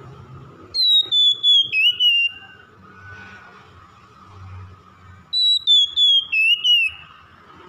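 Oriental magpie-robin singing two loud whistled phrases about four and a half seconds apart, each a descending whistle about a second and a half long broken into several quick notes.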